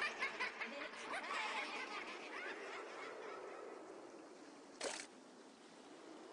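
Cartoon character snickering, fading out over the first two seconds into a soft wash of lapping sea water, with one short sharp sound about five seconds in.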